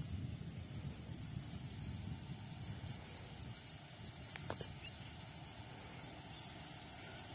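Quiet open-air ambience: a low rumble with a bird's short, high, falling call repeating every second or so.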